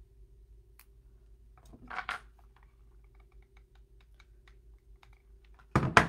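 Scattered light clicks and taps from hand-crafting with dry leaves, sticks and a hot glue gun, with a brief rustle about two seconds in and a louder knock near the end.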